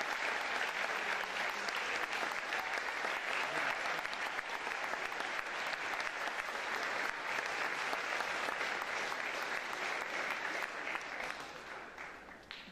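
Audience applauding, steady at first, then dying away near the end.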